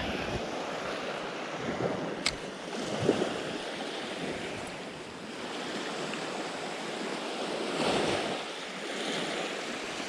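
Sea waves washing against the shore, a steady surf that swells up about eight seconds in, with one sharp click about two seconds in.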